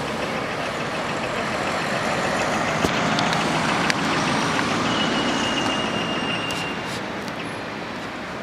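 Steady street traffic noise of passing vehicles, with a thin high squeal lasting about two seconds around the middle and a couple of light clicks.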